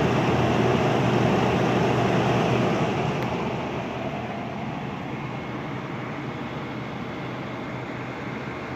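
Window air conditioner running: a steady rushing blower with a low hum underneath, growing quieter from about three seconds in.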